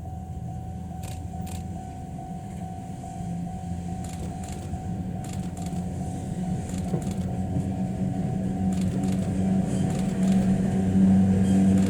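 Model train running on the track: a steady electric-motor hum and wheel rumble that grows steadily louder as it approaches, with scattered light clicks from the rail joints.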